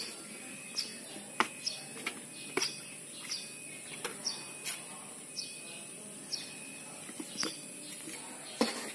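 Kittens playing in a cardboard box: their paws and bodies scrabble and knock against the cardboard, making irregular taps and scratches. Short high chirps repeat about once a second behind them.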